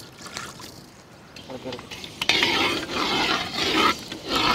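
Perforated steel ladle scraping and stirring fenugreek seeds in hot coconut oil in an iron kadai, in repeated strokes starting about two seconds in.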